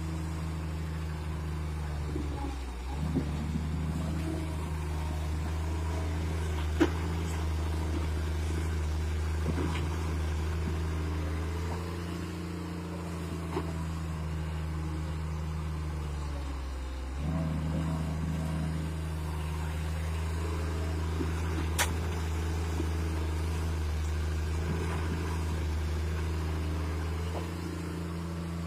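Sumitomo hydraulic excavator's diesel engine running steadily as it digs, its note sagging briefly twice, about 3 and 17 seconds in. Two sharp knocks, about 7 and 22 seconds in.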